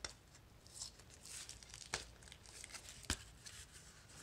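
Corrugated cardboard mailer being pried and torn open at its edge by hand: faint scraping and tearing of cardboard, with a few sharp snaps.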